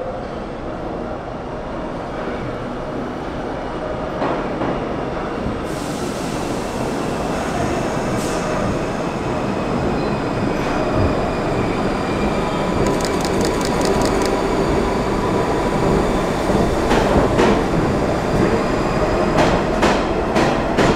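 Vintage R33 and R36 New York subway train running into an underground station, its rumble growing steadily louder as it comes in. In the last few seconds, as the cars pass close by, sharp clicks and knocks sound over the rumble.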